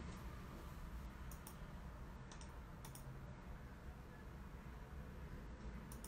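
A few faint, scattered clicks of a computer keyboard over a low steady hum.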